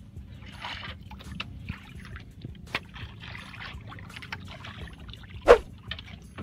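Water lapping and splashing against the side of a small fishing boat, with one loud, sharp knock about five and a half seconds in.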